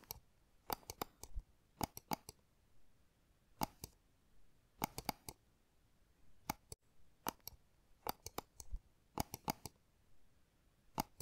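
Light sharp clicks in irregular clusters of one to three, with pauses of up to about a second and a half between clusters.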